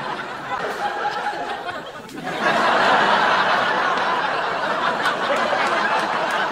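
Studio audience laughing. The laughter dies down about two seconds in, then a bigger wave of laughter rises and holds.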